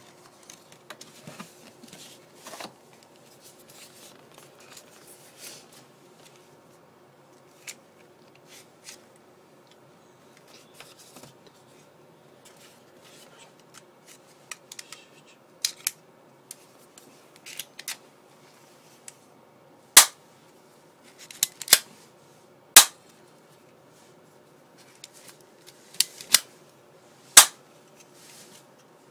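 Galaxy G16 spring airsoft pistol being handled with light clicks and rattles, then a series of loud, sharp snaps in the last third, some in quick pairs: the slide being cocked and the pistol fired.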